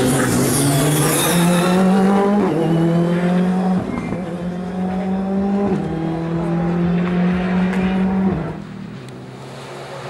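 Rally car engine running at high revs, its pitch holding and then stepping at each gear change. The sound fades away about eight and a half seconds in.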